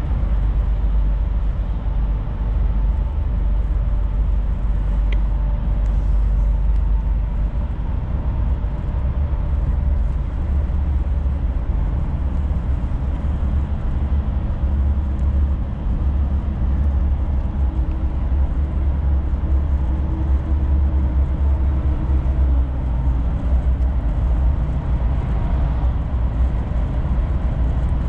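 Volvo FM4 truck's engine running with road noise as the truck drives, a steady low rumble whose engine note shifts slightly now and then.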